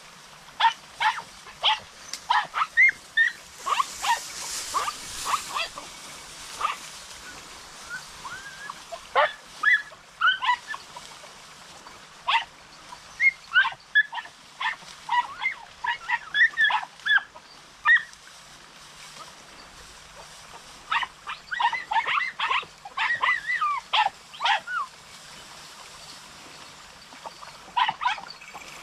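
Podenco hounds yelping in short, high, rapid barks that come in several bursts with brief lulls between, the way hounds give tongue when hunting rabbits in the cover.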